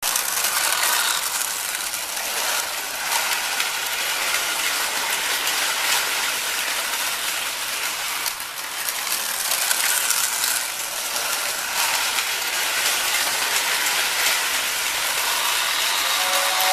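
1947 Lionel 675 toy steam locomotive with its train running on three-rail O-gauge tubular track: a steady mechanical clatter of the motor's gearing and the wheels on the rails. Just before the end, the 6466WX tender's whistle starts to blow a steady two-note tone.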